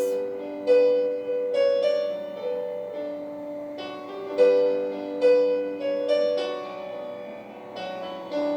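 Piano playing a slow, gentle introduction to a worship song: single notes and chords struck every second or so and left to ring out.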